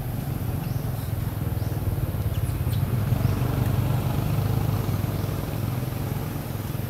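A motor vehicle's engine, a low rumble that swells to its loudest about three to four seconds in and then eases off, as of a vehicle passing by.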